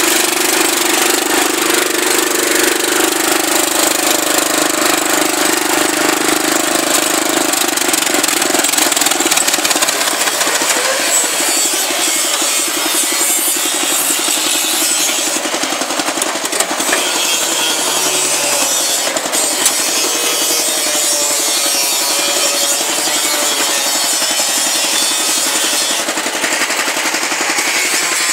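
Riding mower's 12.5 hp Craftsman single-cylinder engine running as the mower is driven, its pitch shifting now and then. A loud, steady rushing noise lies over it.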